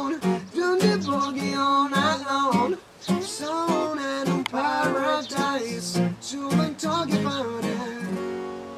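Two acoustic guitars strummed in rhythm with a young man singing over them. Near the end the strumming settles into a chord left ringing.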